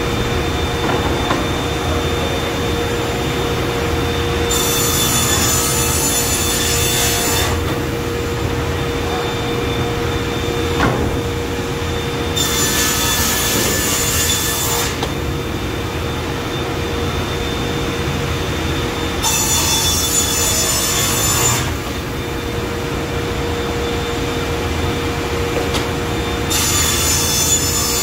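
Sliding table panel saw running with a steady hum, its blade cutting through plywood four times. Each cut is a loud hissing rasp lasting two to three seconds, about seven seconds apart, and the last begins near the end.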